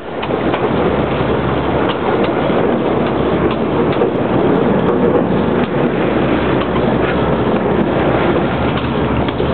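Steady rumbling noise of a boat at sea: the boat's engine running, mixed with wind on the microphone.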